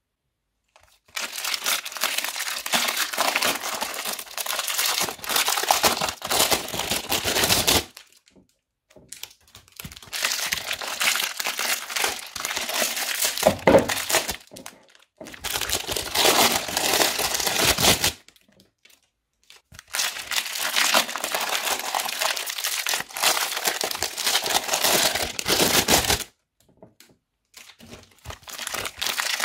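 Foam bead bricks crackling and crunching as they are squeezed and handled, in four long spells with brief pauses between them.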